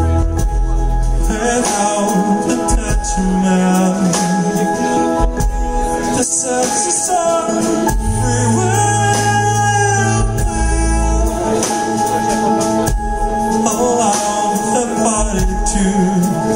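Live band music: a man singing into a microphone over keyboards, drums with cymbals, and long low bass notes.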